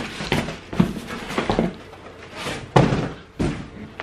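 Cardboard box and packaging being handled and pulled apart: a run of thumps, knocks and short scraping rustles, the loudest thump a little under three seconds in.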